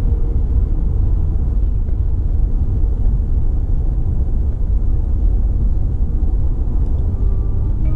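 Steady low rumble of a car driving on the road: tyre and engine noise with no music over it, until faint instrumental music begins near the end.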